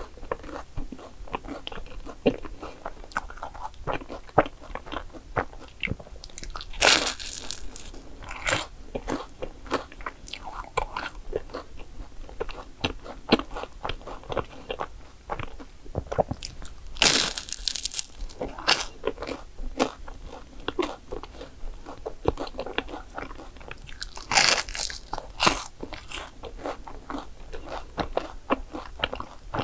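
Close-miked biting and chewing of a crisp croffle (croissant-dough waffle): a steady run of small crackling crunches, with three big crunching bites, roughly ten seconds apart.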